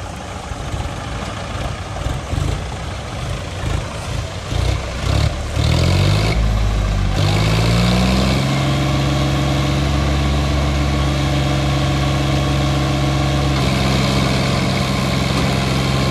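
Diesel tractor engine running rough and uneven, then revving up from about five seconds in. It holds a steady high rev from about eight seconds on.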